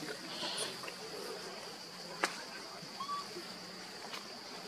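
Steady high-pitched insect drone, with a single sharp click a little after two seconds in and a short faint chirp about three seconds in.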